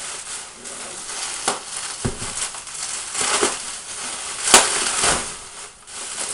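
Bubble wrap and plastic packing being handled and pulled apart, with irregular crinkling and crackling and a sharper crackle about four and a half seconds in.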